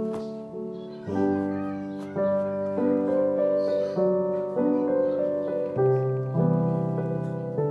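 Background instrumental music: a slow melody over chords, each note struck and left to fade.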